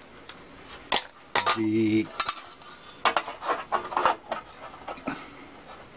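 Metal clinking and knocking as a flat metal straightedge is set against the sander's drive pulleys and moved to check that they are parallel: a series of sharp clinks with short ringing.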